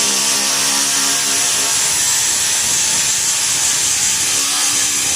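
Angle grinder with a 24-grit grinding disc grinding rust off a car body panel, a steady high hiss over the motor's whine.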